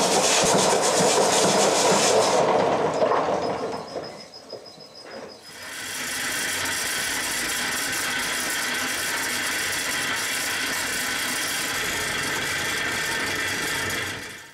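A workpiece grinding against a running belt sander, loud and rasping, for the first couple of seconds, then a short lull. From about six seconds in comes the steady, even rush of air blown through a coal forge's fire bed.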